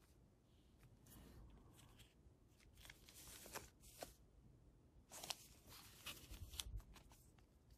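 Foil trading-card booster pack wrappers crinkling as they are handled, in three short, faint spells of rustling with sharp crackles.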